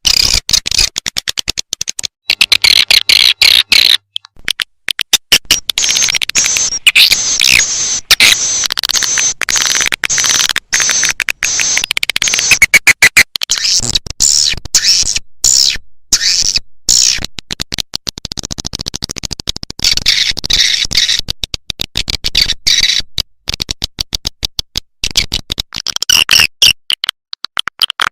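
Recorded swiftlet calls used as a lure sound: dense, rapid, high-pitched twittering and chirping, chopped into quick stuttering bursts with brief gaps.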